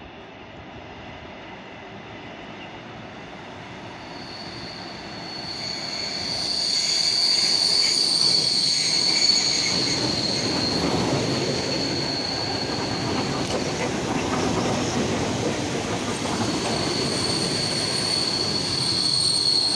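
Six-car ER9M electric multiple unit passing close by, its wheels squealing on the curve in a high steady tone. The rumble of wheels and cars grows louder from about six seconds in as the train reaches and runs past. The squeal drops away around the middle and returns near the end.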